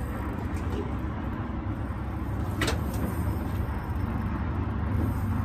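Steady low outdoor rumble, with one sharp click about two and a half seconds in.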